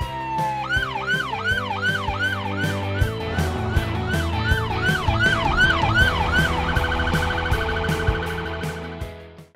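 Police car siren: the tail of a slow falling wail, then a fast yelp of about three sweeps a second, switching to a rapid warble near the end. Background music with a steady beat runs underneath, and the sound fades out just before the end.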